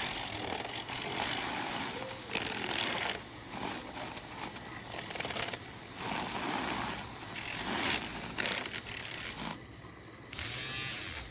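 Handheld battery milk frother whirring as it whisks liquid into foam, in several long spells of varying strength that stop after about nine and a half seconds.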